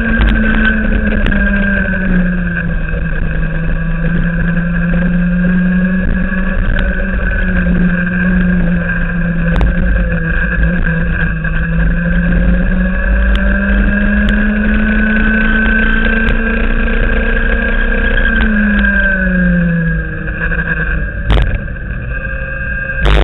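Racing kart engine heard from an onboard camera at speed, its note dipping about two seconds in, climbing slowly through a long stretch, then dropping steeply about nineteen seconds in. A steady low rumble lies under it, and a brief knock comes near the end.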